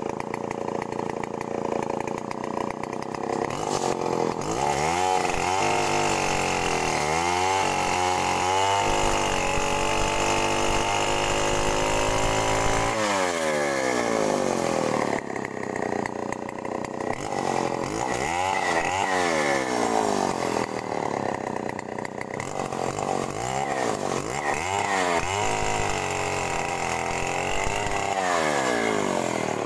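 Two-stroke chainsaw with a CDI ignition running, its engine speed dropping and climbing again and again, with one long high run in the middle.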